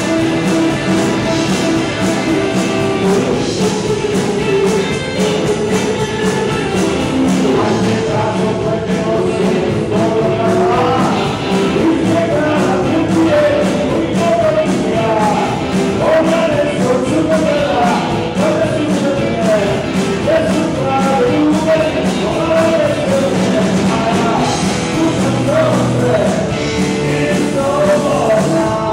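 Rock band playing live: electric guitars, bass and drums, with a voice singing over it.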